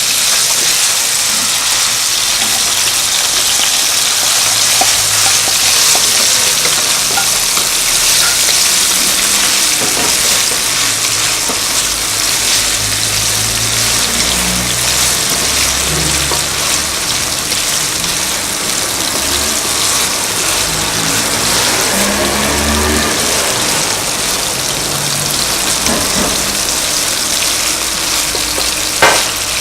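Food frying in olive oil in a pan: a steady sizzle throughout, with a single sharp knock near the end.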